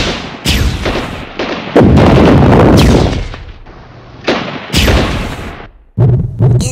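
Battle sound effects: about half a dozen sudden gunshot- and explosion-like blasts, each trailing off in a rumbling tail, the loudest and longest about two seconds in.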